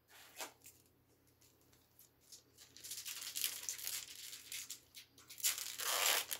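Foil wrapper of a Topps Pro Debut baseball card pack crinkling as it is handled, starting about three seconds in, then torn open with a louder rip near the end.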